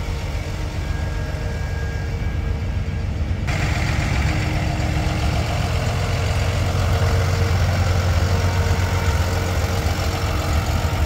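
Big-rig diesel engine idling with a steady low rumble. At first it is muffled, as heard from inside a truck cab; about three and a half seconds in it suddenly turns fuller and louder, heard in the open.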